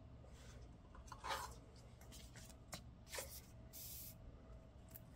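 Faint rustling and scraping of plastic: a photocard in a clear sleeve is handled and slid into a binder's clear pocket page. There are a few soft scrapes, the longest a short hiss just under four seconds in.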